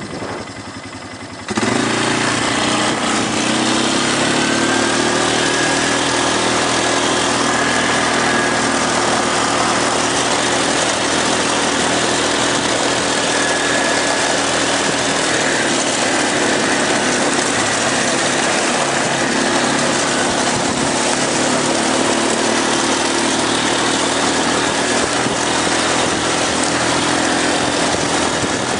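ATV engine running steadily while riding along a gravel trail. It comes in suddenly about a second and a half in, rises a little in pitch as it gets under way, then holds an even pace.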